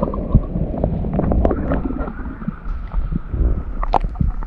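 Water sloshing and lapping close to the microphone as a person wades neck-deep, with wind on the microphone and a few small splashes.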